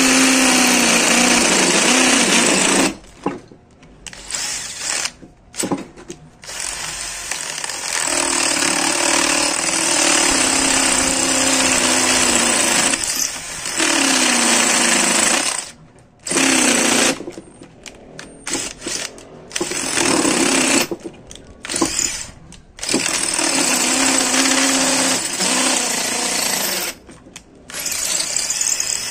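WAP K21 21 V cordless drill-driver boring into a concrete block with a 10 mm masonry bit, running in long bursts with short pauses between, its motor pitch sagging a little under load. Progress through the concrete is slow, which the owner thinks is down to the bit being very old.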